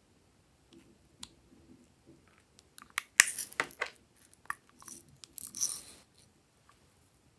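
Small plastic cosmetic containers being handled: light scrapes and clicks, a sharp plastic click about three seconds in with scratchy rattling after it, and a second scratchy burst of plastic clicking as a round plastic case is opened.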